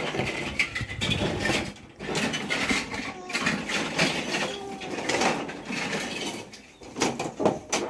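Plastic Duplo toy train cars and track pieces clattering and knocking on a tabletop as children push them along, with children's voices mixed in.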